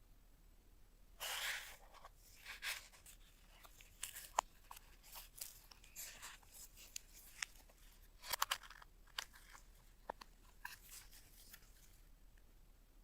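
Packaging being handled: irregular rustling and crinkling, with scattered sharp clicks, the longest rustle about a second in.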